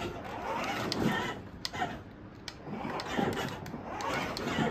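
Electric drive motors and gearboxes of a kids' 4x4 ride-on jeep running in a few short bursts as it is driven by remote control, with some sharp clicks between them.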